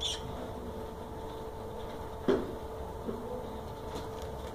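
Steady electrical hum with a few light clicks and one sharper knock about two seconds in.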